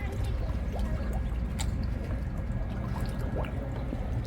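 Water splashing and trickling with small scattered plops, over a steady low rumble.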